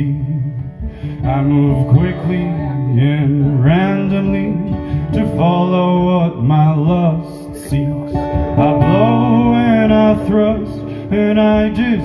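A man singing a slow folk ballad, accompanying himself on acoustic guitar.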